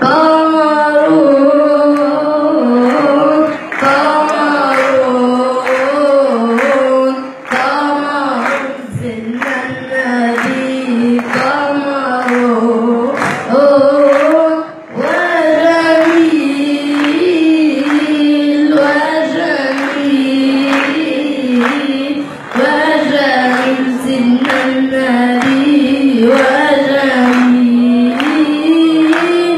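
A boy singing solo into a microphone, an unaccompanied Arabic religious chant (inshad) with long held notes that bend and ornament in pitch, broken by short breaths.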